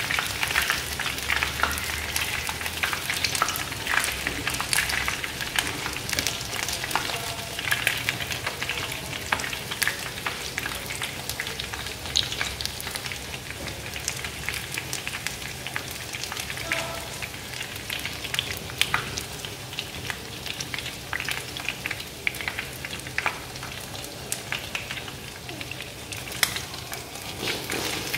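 Battered chicken wings frying in shallow oil in a pan: a steady sizzle with many sharp crackles and pops.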